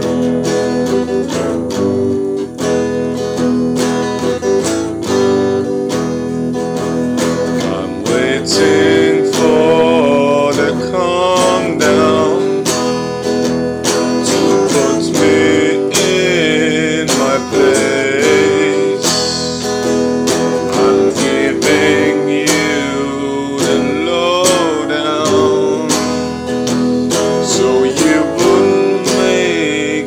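Acoustic guitar strummed steadily, with a man singing along; his voice comes in about eight seconds in.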